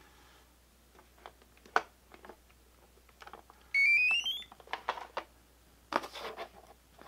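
A short electronic beep that rises steadily in pitch and lasts under a second, a little past the middle, among scattered light clicks and taps from handling small parts.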